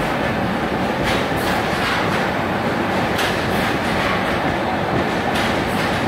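Double-decker express train coaches rolling past at close range: a steady rumble of steel wheels on rail, with a pair of sharp clacks about every two seconds as each coach's wheelsets cross a rail joint.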